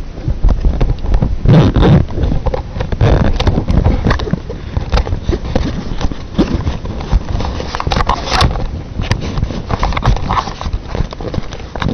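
Footsteps and rustling through dry weeds and brush close to the camera's microphone: a dense run of irregular crackles and low thumps, loudest about two seconds in.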